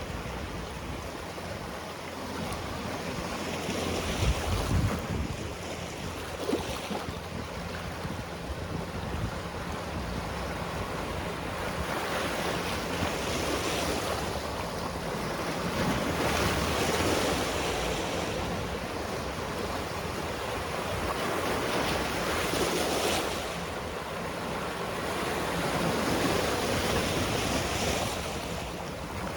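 Sea waves washing onto the shore, a continuous rush of surf that swells and eases every few seconds.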